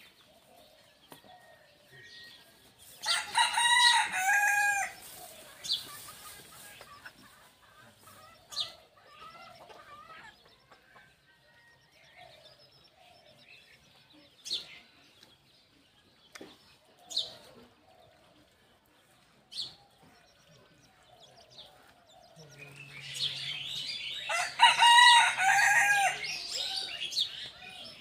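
A rooster crowing twice, once about three seconds in and again near the end, each crow a couple of seconds long and bending in pitch. Faint chirps and scattered ticks come in between.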